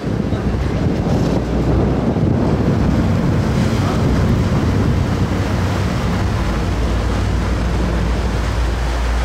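Harbour ferry under way: water rushing past the hull and wind buffeting the microphone, over a low steady engine hum that grows stronger in the second half.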